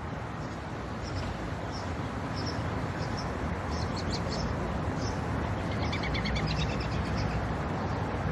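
Small birds chirping now and then over a steady background of outdoor street noise.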